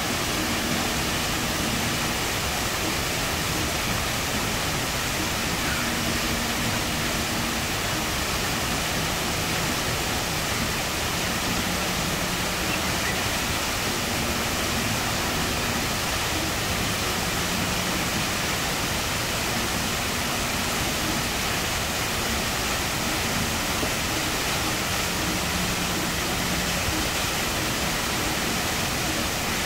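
The HSBC Rain Vortex, a 40-metre indoor waterfall falling from a glass roof into a basin, rushing with a steady, even hiss that does not change.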